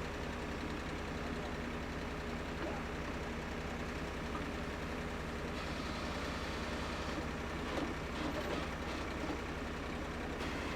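Water-well drill rig's engine running steadily with a low hum. A fainter higher hiss joins about halfway through and stops shortly before the end.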